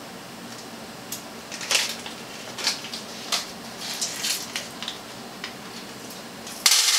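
Small machine screws clicking and clinking as they are handled and taken from their parts bag, with scattered sharp ticks. Near the end comes a sudden, louder rattle lasting about a second as the screws are tipped out onto the table.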